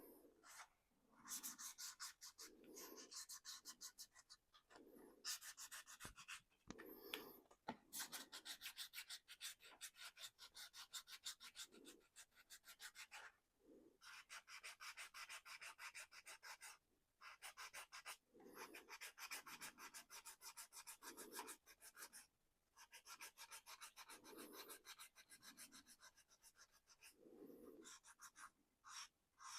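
Hand sanding of a small painted 3D-printed plastic car body with sandpaper: fast, short scratchy strokes that stop briefly several times, wearing the paint through as weathering.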